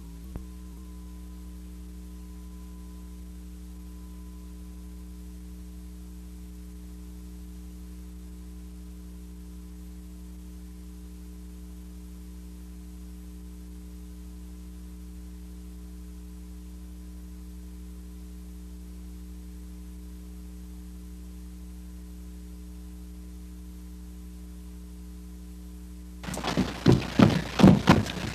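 Steady low hum with several constant tones, typical of an old VHS tape transfer. About 26 seconds in, a burst of loud knocks and thumps starts suddenly and runs to the end.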